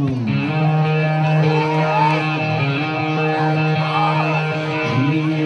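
Guitar rock music with a long held low note and bending lead notes, opening on a falling pitch glide.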